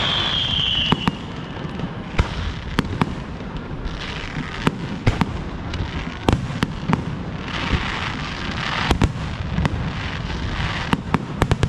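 Fireworks display: a quick series of sharp bangs from bursting shells over a low rumble, with spells of crackling hiss about four seconds in and again from about eight to ten seconds. A high whistle falls in pitch during the first second.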